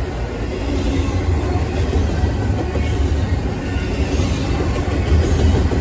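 Double-stacked intermodal container freight train rolling past: a steady, deep rumble of railcar wheels on the rails.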